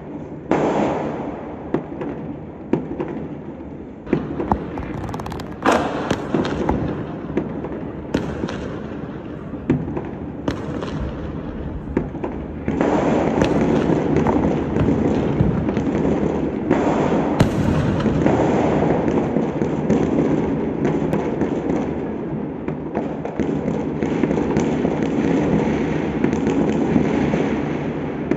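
Many fireworks going off: scattered sharp bangs at first, then from about halfway through a dense, unbroken crackle of many bursting at once.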